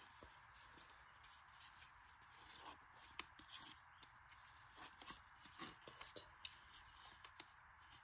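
Near silence: faint rustling and a few light ticks of a handmade paper journal card being handled, over a steady low hiss.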